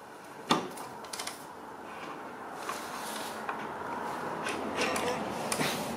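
A Triumph Bonneville's front axle being drawn out through the wheel hub and fork legs: metal sliding and scraping, with a sharp click about half a second in and a few lighter clicks soon after.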